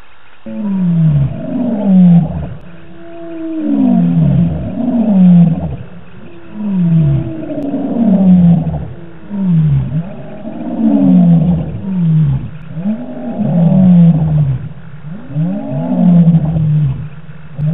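Male lion roaring: a long series of deep roars, each falling in pitch, coming about once a second.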